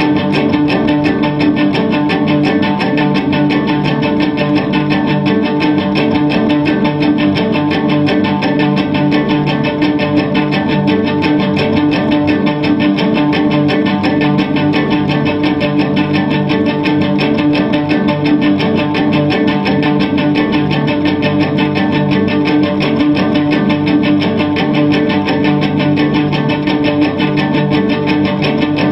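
Amplified cello with its strings plucked rapidly and continuously by hand, a dense even stream of notes over a steady drone.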